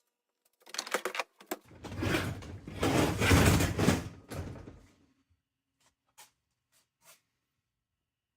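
Dishwasher door and rack being handled: a few clicks, then about three seconds of sliding, rumbling clatter, then two light knocks.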